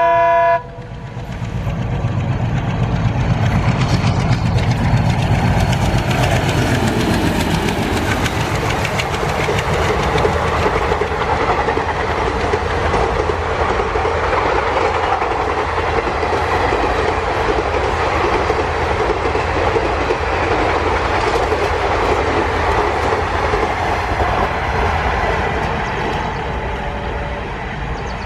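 Alco WDM-3A diesel locomotive sounding its multi-tone horn briefly at the start, then its heavy engine drone passing close with the pitch dropping as it goes by. Its train of ICF coaches follows, a long steady clatter of wheels over rail joints.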